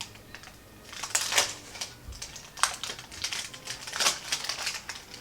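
Small toy box and its packaging being opened by hand: crinkling and tearing in several short bursts, the loudest about a second in and near four seconds in.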